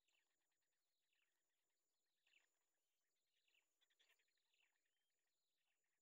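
Near silence with a few faint, high, short chirps from heron chicks begging at the nest.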